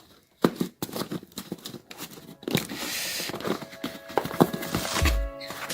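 Packaging of a boxed pair of headphones being torn and crinkled by hand, with a run of sharp clicks and rustles. Background music comes in about two-thirds of the way through, and there is a dull thump near the end.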